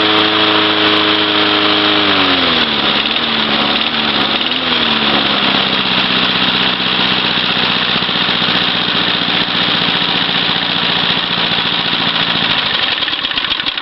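1981 Briggs & Stratton 3.5 hp single-cylinder engine running fast, then dropping in speed about two seconds in, hunting briefly and settling into a steady lower idle before cutting out near the end. It runs smoothly with no coughing, on fresh oil and a newly sorted spark plug.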